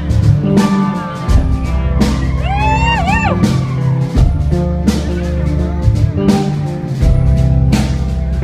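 Live country band playing an instrumental intro: a steady drum beat under bass and guitar chords. About three seconds in, a high lead line slides up and down.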